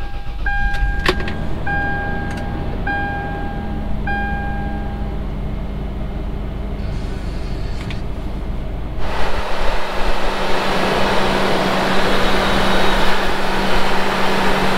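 A supercharged Toyota 3.4L 5VZ-FE V6 in a third-generation 4Runner starts up and idles on its test start after a valve cover gasket job, while the dash chime beeps about five times over the first few seconds. About 9 seconds in, the sound changes to the louder, fuller noise of the engine heard from under the hood, with a steady hum running through it.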